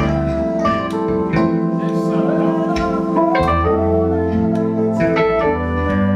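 A live band playing: held keyboard chords over a moving bass line, with drum hits.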